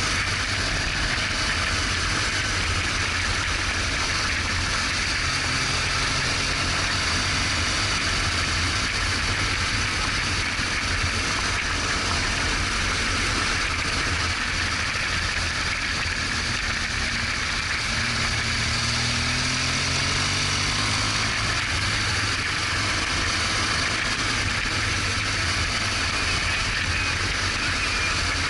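BMW R1200GS Adventure motorcycle being ridden, its flat-twin boxer engine running under a steady rush of wind and road noise. The engine pitch rises and falls a few times as the revs change.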